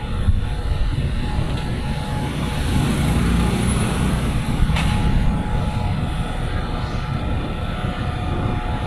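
Steady urban road traffic: cars and motorcycles running at a busy junction, a continuous low rumble.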